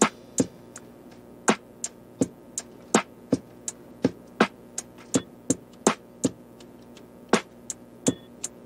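Background music: a sparse electronic beat of sharp percussive clicks, about three a second, over a faint sustained tone, with a brief pause in the beat near the end.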